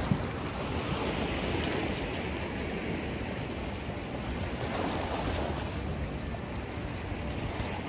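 Sea water washing and lapping, with wind on the microphone; the wash swells and eases a couple of times. One sharp knock right at the start.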